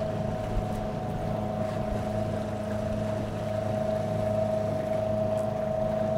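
Newport NT300 electric outboard motor running at top speed with a steady whine and a low hum, over the wash of water along a small aluminum boat's hull.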